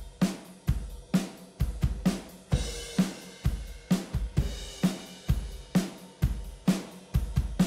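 A rock drum kit recording (kick, snare, hi-hat and cymbals) playing through the Rupert Neve Designs 5254 diode bridge compressor, with the compression being set on the drums. It keeps a steady beat of about two hits a second, with a brighter cymbal wash through the middle.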